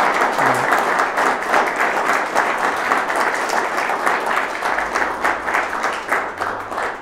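Audience applauding, many hands clapping at once in a dense patter that tapers off near the end.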